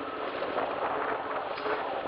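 Wind rushing over the microphone of a camera on a moving bicycle: a steady hiss that swells and eases.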